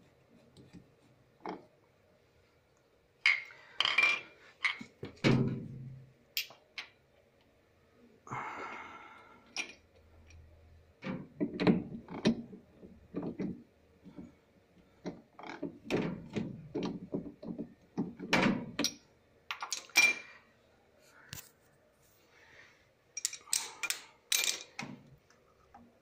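Irregular knocks, clicks and clunks of parts being handled as the transmission pulley and drive belt of a Mabe Aqua Saver washing machine are fitted, with a short scraping sound about eight seconds in.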